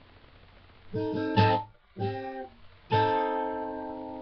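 Guitar in an unusual alternate tuning strumming chords with no singing: a chord about a second in, a short chord near two seconds that is cut off, and a chord near three seconds that rings on.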